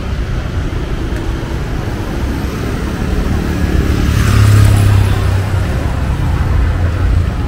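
Street traffic noise with a motor vehicle passing close, its low engine hum swelling to loudest about halfway through and then fading.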